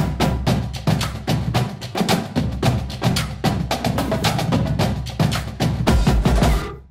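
Background music with a fast beat of sharp, wood-block-like percussion hits over a deep bass line, cutting off abruptly at the very end.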